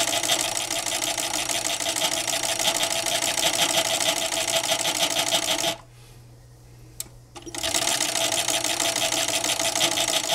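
Fur sewing machine with twin disc feeds stitching a shearling seam at a fast, even rate. It stops a little past halfway for about two seconds, with a few light clicks, then runs again and stops near the end.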